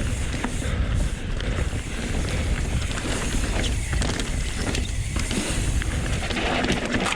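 Pivot Switchblade mountain bike ridden fast down a dirt trail: continuous tyre rumble and heavy wind noise on the microphone, with short clicks and knocks of the bike rattling over bumps.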